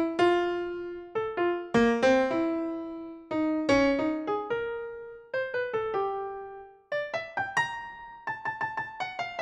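Background music: a slow solo piano melody of single struck notes, each ringing and dying away, with a brief pause about seven seconds in, then quicker repeated notes near the end.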